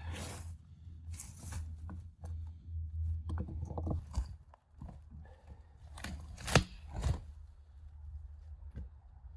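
Scattered knocks and scrapes of wood and gear being handled, over a low steady hum, with one sharp knock about six and a half seconds in.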